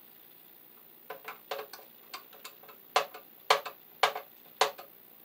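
Sharp metallic clicks from a hand tool and a bare copper ground wire knocking against a steel sub panel enclosure as the wire is worked into place. Several small clicks come first, then four louder ones about half a second apart.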